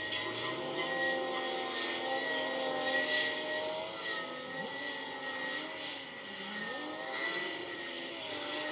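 Heavy diesel machinery working: a Kawasaki 90ZV wheel loader and a grab crane, their engines rising and falling in pitch as they work. A sharp knock stands out near the end.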